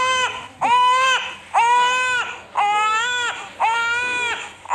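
Baby crying: a steady series of wails about once a second, each rising at the start and falling away at the end.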